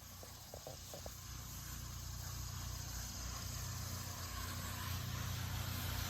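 Pressure-washing rig running: a low engine hum under a steady hiss, growing gradually louder, with a few faint ticks in the first second.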